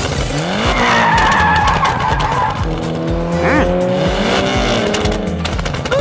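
Car sound effects: an engine revving up and down in pitch, with a tire screech in the first half, over background music.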